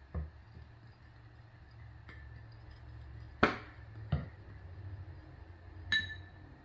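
A spoon knocking against a small dipping-sauce bowl while stirring in sriracha: four separate clinks, the loudest about halfway through, the last one ringing briefly.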